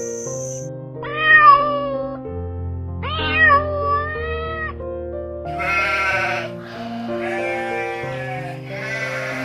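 Five drawn-out animal cries, the first two clear and falling in pitch, the last three rougher, over background music with long held notes.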